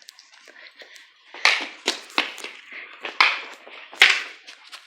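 Airsoft guns firing: about five sharp snapping shots at irregular intervals, with fainter clicks between them.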